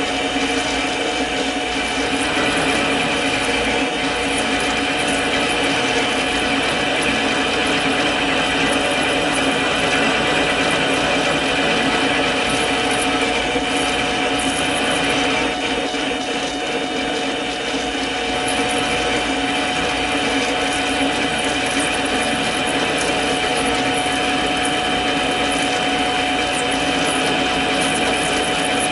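Mini lathe running steadily, its motor and gears giving a constant whine, while a spring parting tool cuts into the turning workpiece.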